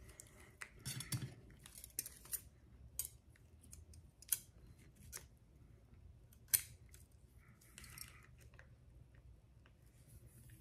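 Steel surgical instruments being handled: scattered sharp metallic clicks and clinks a second or two apart, with softer handling noise between.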